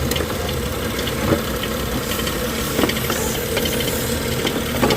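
BMW 640i engine idling steadily after its misfitted valve cover gasket was reseated. That gasket had let air be sucked in and caused the rough idle. A few brief clicks sound over the hum.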